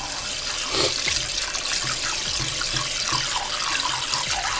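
Kitchen tap running a steady stream of water into a stainless steel bowl of rice, filling it for another rinse of the sushi rice.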